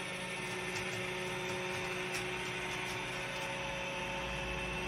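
Steady hum of a small motor running, with a few faint tones held throughout.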